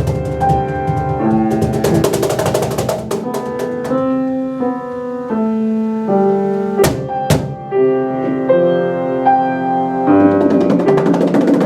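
Live piano-and-percussion instrumental: fast percussion strikes over piano for the first few seconds, then mostly piano with held notes and chords. Two sharp percussion hits come midway, and the fast percussion returns near the end.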